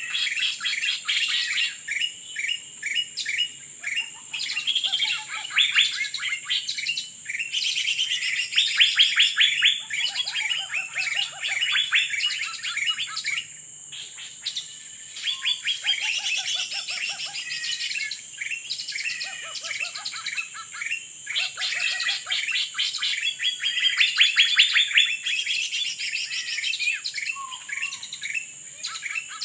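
Dense, rapid bird chirping and trills, one call running into the next almost without pause, with a few lower notes mixed in. A steady high-pitched whine sits underneath.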